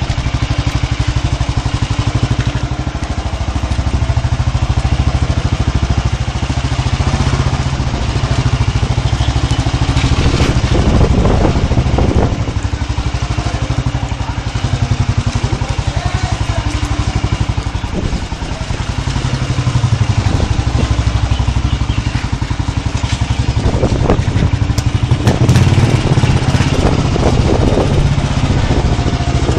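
Motorcycle engine running steadily while riding at low speed, with a dense low rumble.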